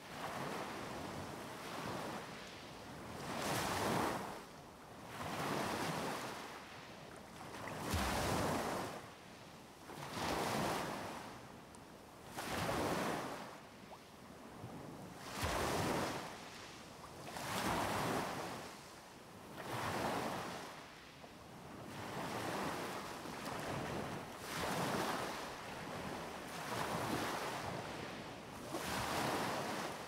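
Small waves breaking and washing up the beach close by, one surge about every two and a half seconds, each rising and then draining away.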